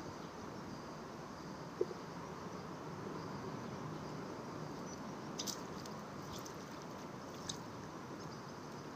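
Steady outdoor background hiss of a riverbank, with a single short knock about two seconds in and a few light, high clicks later on.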